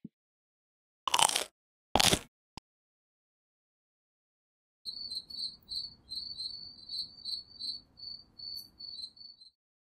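Two brief hissing bursts about a second apart, then a cricket sound effect: short high chirps repeating two to three times a second, signalling that it is evening.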